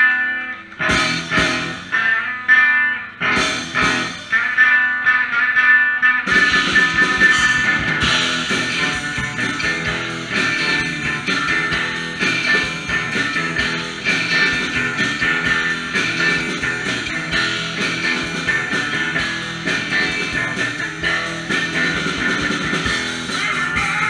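Live rock band playing: a guitar riff in separate strokes at first, then bass and drums come in about six seconds in and the full band plays on.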